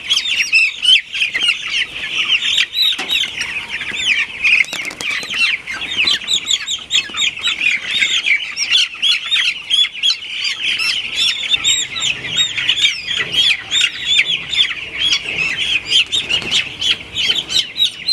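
A large flock of broiler chickens calling all at once: a dense, continuous chorus of many short, high peeps overlapping one another.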